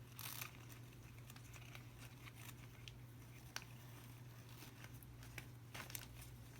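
Faint rustling and small clicks of ribbon and a popcorn bag being handled as a bow is tied, over a steady low hum.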